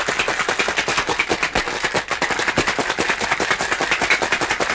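Ice cubes rattling hard inside a stainless steel cocktail shaker, shaken fast and continuously as a daiquiri of white rum, lime juice and cane syrup is chilled over plenty of ice. The rattling stops right at the end.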